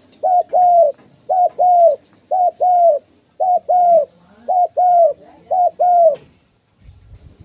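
Spotted dove cooing: a short coo followed by a longer one, the pair repeated six times at about one a second, stopping a little after six seconds.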